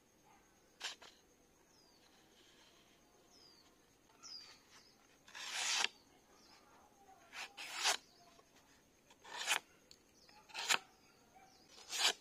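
A dagger blade slicing through a hand-held sheet of paper: a series of short, sharp swishing cuts a second or two apart, the longest and loudest about halfway through, testing the sharpness of the edge. A bird chirps faintly a few times in the first half.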